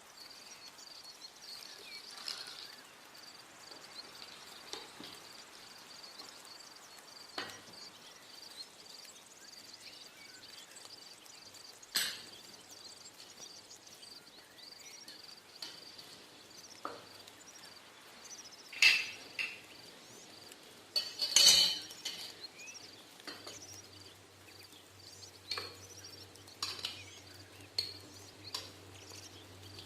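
Scattered clinks and knocks of metal utensils against steel cookware, as when stirring and handling pots, the loudest cluster about two-thirds through. A faint steady high whine runs underneath.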